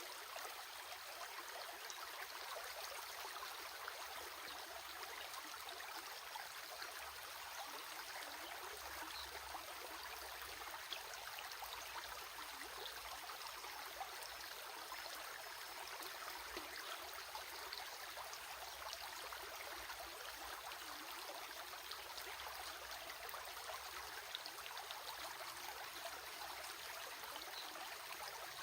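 Stream of water flowing steadily, a continuous rushing hiss with small splashes and trickles.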